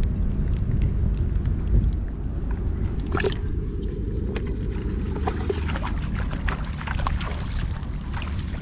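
Water splashing and dripping in short, scattered splashes over a steady low rumble.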